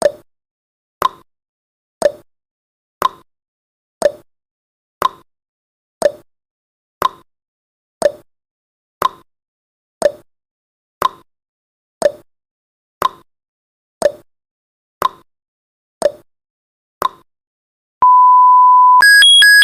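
Countdown timer sound effect: a click ticking once a second, then a steady electronic beep about a second long as the count runs out, then a high, rapidly switching electronic alarm tone at the end.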